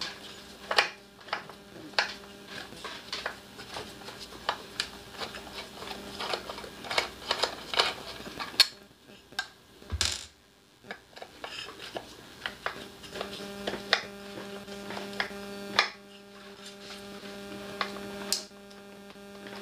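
Screwdriver and small metal parts clicking and scraping against a portable generator's metal engine housing as the ignition unit's screws are worked loose, with one louder knock about ten seconds in. A steady electrical hum runs underneath, stronger in the second half.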